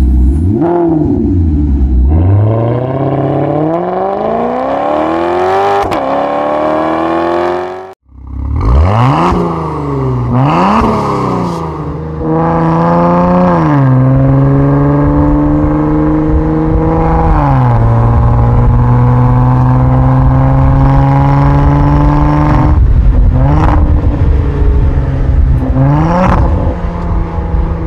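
Maserati Ghibli S twin-turbo V6 engine and exhaust revving and accelerating hard. A few quick throttle blips and long rising pulls give way, after a sudden cut about eight seconds in, to more blips and then a run up through the gears, the pitch climbing slowly and dropping at each upshift, with short rev jabs near the end.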